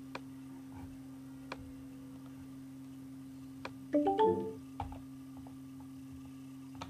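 Steady hum with a few faint clicks from a computer mouse. About four seconds in comes a brief run of short pitched notes, like a chime.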